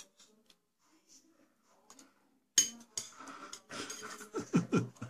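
A spoon clinks sharply once against a soup bowl about two and a half seconds in, followed by softer eating sounds from a small child.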